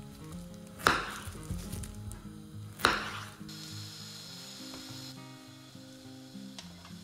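Two sharp knife chops through a courgette on a wooden cutting board, about two seconds apart, each cutting off cleanly. A few faint clicks follow.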